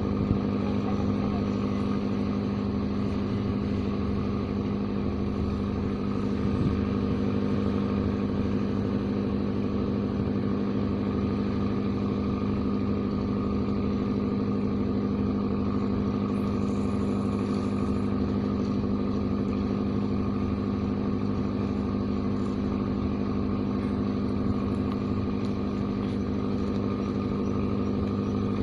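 An engine running steadily at idle, a constant low drone that does not change pitch.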